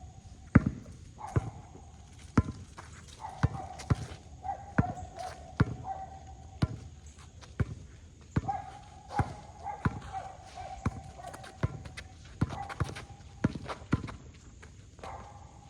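Basketball being dribbled, a steady bounce about once a second, with a thin steady tone coming and going in the background.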